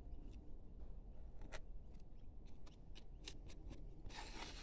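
Small hand carving chisel paring into wood, giving faint scattered clicks and scrapes as chips break away. Near the end comes a short rustling swipe as a hand brushes across the board.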